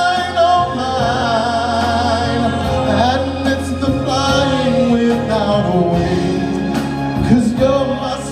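A man singing a pop ballad into a handheld microphone over a backing track played through PA speakers, holding long, wavering notes without clear words.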